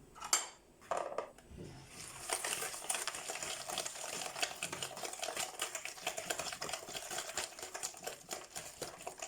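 Eggs and sugar being beaten by hand in a bowl: a couple of knocks, then from about two seconds in a fast run of clicking as the utensil strikes the bowl.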